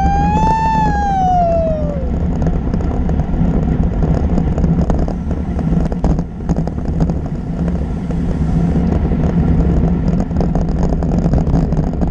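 Wind rushing over the microphone and road-bike tyres running on asphalt, a steady loud rush while riding at speed. In the first two seconds a clear whistle-like tone rises slightly and then slides back down.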